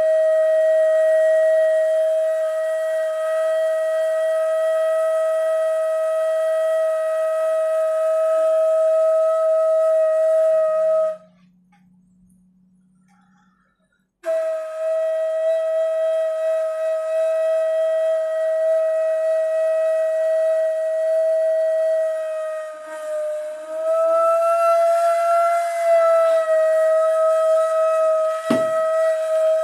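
Ney, the Turkish end-blown cane flute, holding one long, airy note. The note stops for about three seconds near the middle, then resumes, bending slightly upward and back before settling. A short low thump comes near the end.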